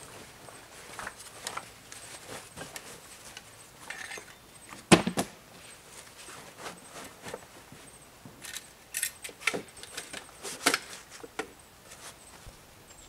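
Camp gear being handled on a log bench: rustling of packs and straps, small clinks and scattered light knocks, with one sharp knock about five seconds in, the loudest sound, and a run of bright clicks near the end.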